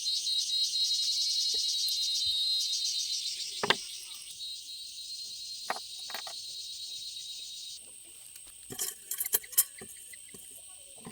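Insects trilling in a fast, high, pulsing buzz that weakens after about three and a half seconds and stops at about eight seconds, with a few sharp clicks scattered through it and a quick cluster of clicks near the end.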